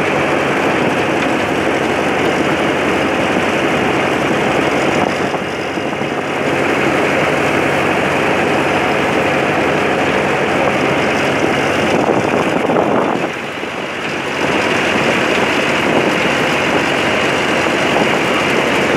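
Tractor's diesel engine running steadily under way, loud and close, easing off briefly twice.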